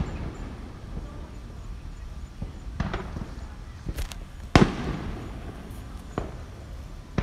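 Fireworks going off: several sharp bangs at uneven intervals, the loudest about four and a half seconds in, each trailing off in an echo.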